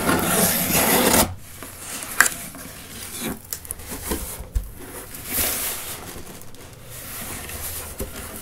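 Cardboard shipping box being opened by hand: a loud rasp at the start lasting about a second, a sharp click about two seconds in, then quieter scraping and rubbing of cardboard.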